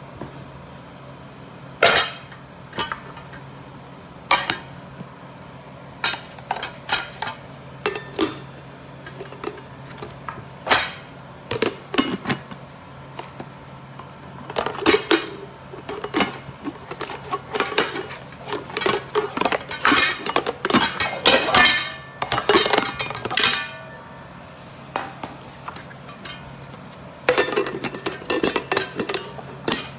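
Nonstick cookware pots and pans clinking and knocking against each other as they are handled and set down: scattered metallic clinks at first, a busy run of them through the middle, and another cluster near the end.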